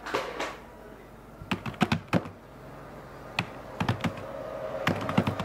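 Typing on a computer keyboard: irregular clusters of key clicks, after a brief rustle at the start.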